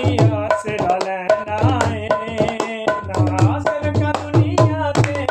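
A man sings a Punjabi devotional worship song with a wavering melodic line, accompanied by a hand-played dholak drum beating a steady rhythm of low strokes.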